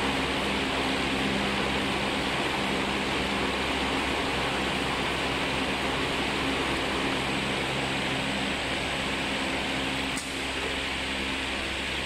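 Hose coil wrapping machine running, its film-wrapping ring turning around the coil: a steady mechanical hum with hiss. A brief click comes near the end, after which it runs slightly quieter.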